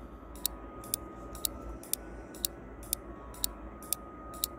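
Quiz countdown timer ticking, about two sharp, high clock-like ticks a second, with faint steady tones beneath.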